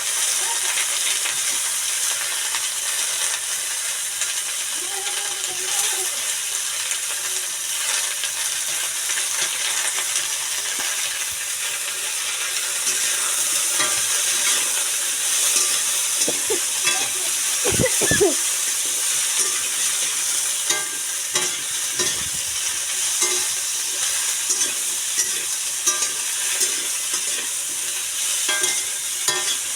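Aloo matar sabzi cooking in hot oil in a pan, a steady sizzle, with a spoon scraping and clicking against the pan as it is stirred. A few louder knocks come about 18 seconds in.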